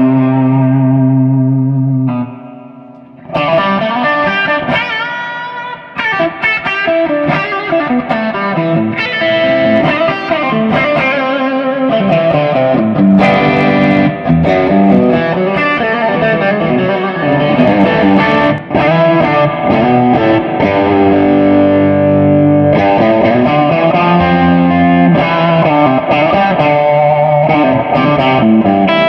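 Gibson Les Paul Standard with Vergatto Notturno humbuckers played through overdrive, a smooth, mildly broken-up electric guitar tone. A held note rings out for about two seconds, then after a brief pause a run of single-note lead phrases follows.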